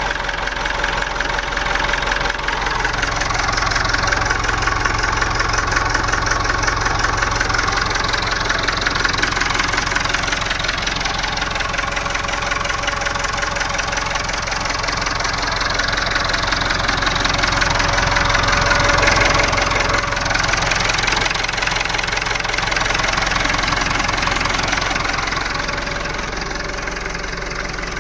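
Massey Ferguson 265 tractor's three-cylinder Perkins diesel engine idling steadily while it warms up after a cold start in freezing weather, with a slight swell in engine speed about two-thirds of the way through.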